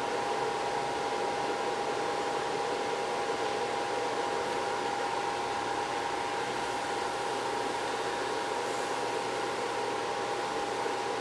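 Steady fan whir with one constant high whine, unchanging throughout: electrical cooling fans running during an amplifier dyno run.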